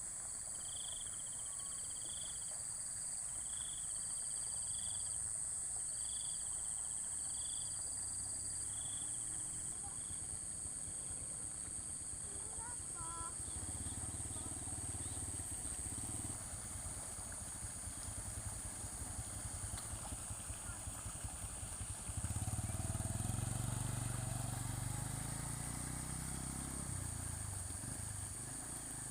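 Crickets or other night insects keep up a steady high-pitched drone, with pulsed chirps that die away early. Under them a motorcycle engine runs low, getting louder about halfway through and louder still later on, with its pitch rising and falling.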